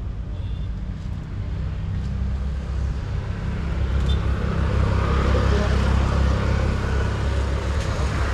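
Road traffic passing close by: a steady low engine rumble that swells from about three seconds in, with tyre noise on the road.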